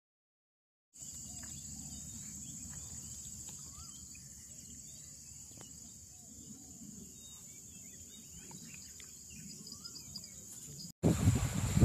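Steady high-pitched drone of insects with scattered short bird chirps over a low rumble. After about a second of silence it starts, and near the end it cuts abruptly to louder wind noise on the microphone.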